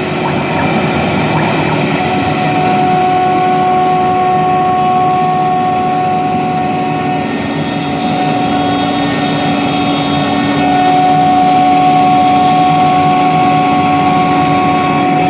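CNC gantry wood router running, its spindle giving a steady high whine over the rushing noise of the cutter milling. One of the lower tones drops in pitch about halfway through.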